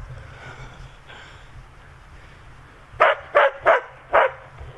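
Border collie barking at a squirrel: about five sharp barks in quick succession, starting about three seconds in.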